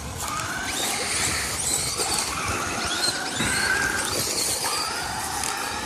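Electric RC car motor whining, its pitch rising and falling with the throttle over tyre and ground noise.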